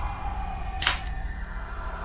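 Background music with one sharp snap about a second in: a Sky Marshal double-action model revolver being fired at a paper target.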